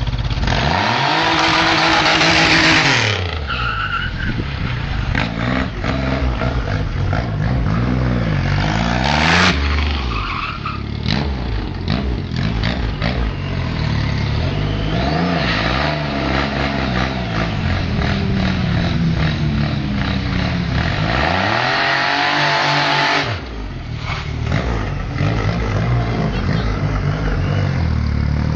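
Triumph Rocket III's 2.3-litre three-cylinder engine revved up and down again and again during a burnout, its spinning rear tyre screeching against the tarmac. The tyre hiss is heaviest in the first three seconds and again a little past two-thirds of the way through.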